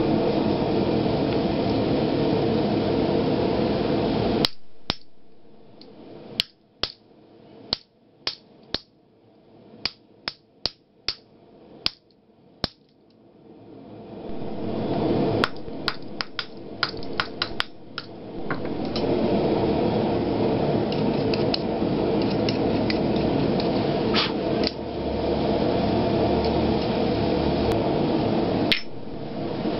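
Hammer blows on a blacksmith's guillotine fullering tool set in the anvil's hardy hole: a quick run of about a dozen sharp metallic strikes, then several more, a steady rushing noise stopping before the first run and returning before the second.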